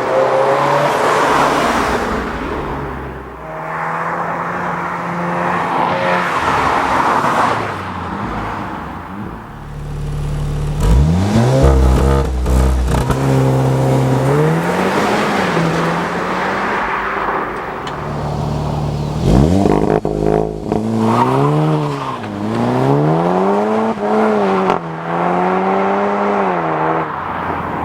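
SEAT Leon Cupra 300's turbocharged four-cylinder engine and exhaust running and being revved. The pitch holds steady for stretches, climbs sharply about ten seconds in, and in the second half rises and falls in a series of quick rev blips.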